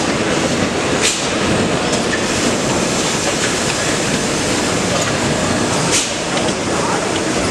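Steady loud din of a busy exhibition hall with injection moulding machines running, with two sharp clacks about five seconds apart.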